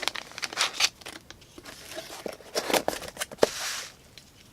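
Knife box and packaging being handled and unpacked: crinkling and rustling with scattered light clicks and taps, and one sharper click about three and a half seconds in.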